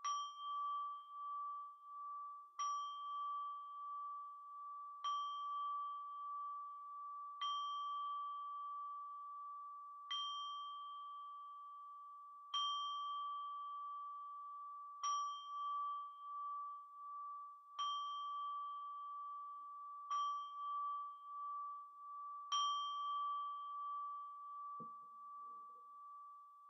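Singing bowl struck ten times at an even pace, about one strike every two and a half seconds. Each strike adds a bright ring over one steady, sustained tone, which fades away after the last strike.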